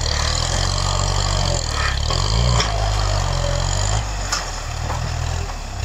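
Tractor engine running steadily under load as its front blade pushes through grass and soil. The engine note dips and picks up again about two seconds in, with a few short knocks.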